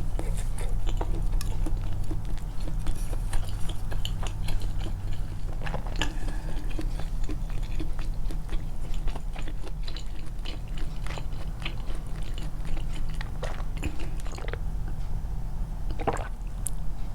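Close-miked chewing and biting: wet mouth clicks and smacks, with a steady low hum underneath.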